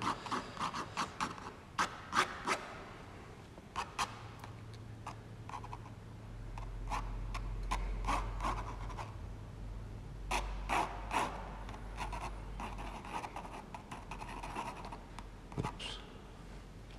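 Ink pen scratching across rough 300 lb watercolour paper in many quick, irregular strokes as lines are sketched in.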